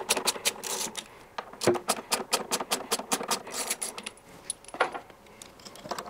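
Quarter-inch drive socket ratchet clicking as it undoes the washing machine motor's rear mounting bolts: a quick run of ticks, a short pause, then a longer run.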